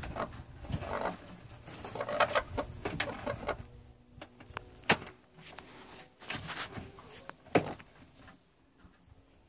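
Hens in a barrel nesting box clucking softly among the hay, with two sharp clicks in the second half.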